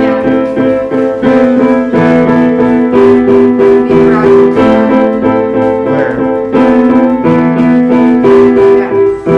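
Piano played in chords, several notes held at once, with a short figure of repeated notes in the middle and again near the end.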